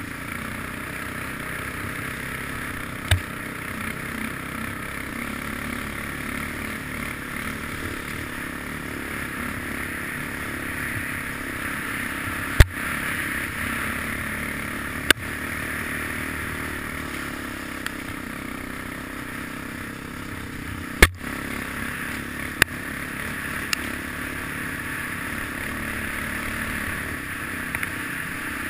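Steady rushing riding noise from a helmet-mounted action camera on a vehicle moving fast along a snowy trail, with a few sharp knocks from bumps, the loudest about halfway through and again about two-thirds of the way in.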